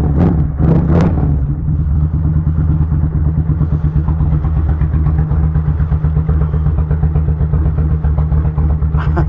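Kawasaki Vulcan 1500 Nomad's V-twin running at a steady, fast idle on half choke while still cold. A few sharp clicks sound in the first second.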